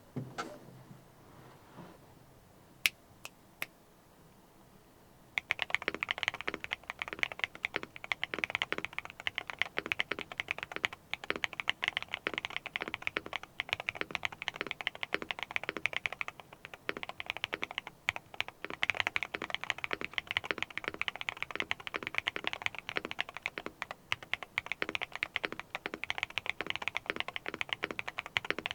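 Typing sound test on Akko Botany long-pole switches in a Neo70 mechanical keyboard: a few single keystrokes, then from about five seconds in, fast continuous typing.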